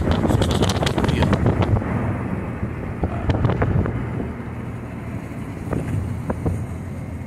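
Road noise from a moving car: engine and tyres running with wind rushing over the microphone, louder and gustier for the first couple of seconds and then steadier.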